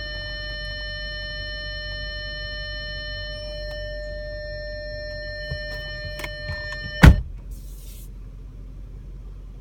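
Replacement CD changer in an Audi A8 loading a disc: a steady mechanical whine with small clicks, which stops with one loud knock about seven seconds in, followed by a brief hiss.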